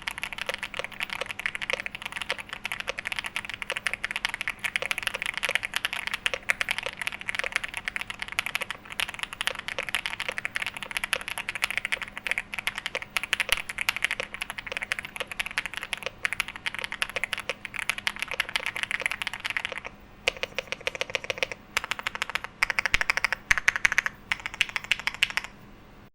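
Fast, continuous typing on a Xinmeng AL66 65% gasket-mount mechanical keyboard with Black Plum linear switches and PBT keycaps, many keystrokes a second. The typing breaks off briefly about twenty seconds in, goes on in shorter runs, and stops near the end.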